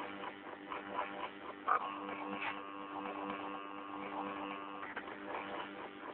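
Stepper motors of a homemade CNC machine humming steadily as they step, with ticks of the moving mechanism; a higher whine joins from about two seconds in and stops near five seconds.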